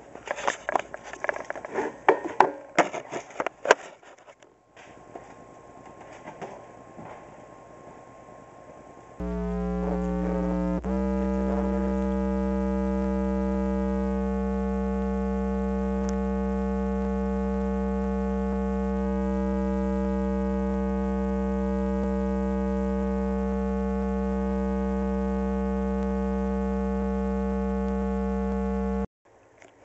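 Car subwoofers driven by a car amplifier, playing a steady low bass test tone with a string of overtones above it. The tone starts about a third of the way in, drops out briefly, then holds steady and cuts off suddenly near the end. Before it there are a few clicks and knocks.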